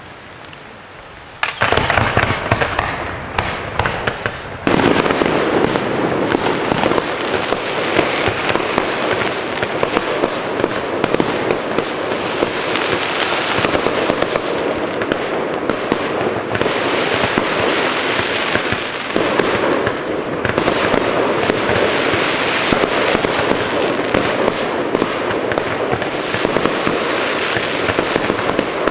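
Fireworks display: a dense barrage of bursting shells and crackling that starts suddenly about a second and a half in, grows louder about five seconds in, and keeps up without pause.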